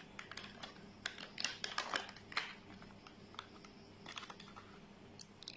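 Irregular crinkling and clicking of a plastic powdered-creamer pouch being handled and opened, busiest in the first couple of seconds and again about four seconds in.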